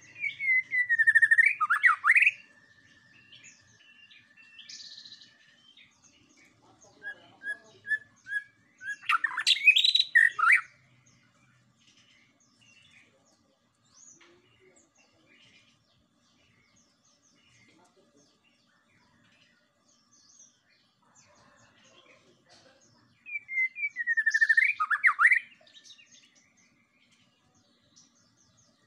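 White-rumped shama (murai batu) singing: three loud phrases of rich, sweeping whistles, each about two seconds long, near the start, about nine seconds in and about twenty-three seconds in, the first and last alike. A few short whistled notes lead into the middle phrase, and a steady high whistle runs under the first five seconds.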